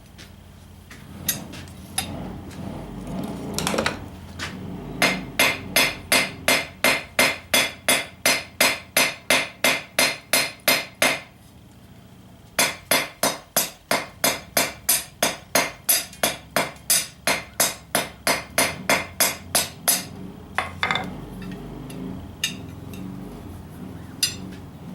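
A blacksmith's hammer strikes steel on an anvil, shaping metal for a pair of tongs. It comes in two long runs of quick, even blows, about three a second, with a short pause between the runs. A few single strikes fall before and after.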